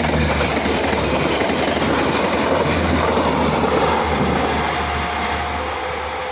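A train passing at speed: a loud, steady rush of wheels on rails, easing slightly near the end.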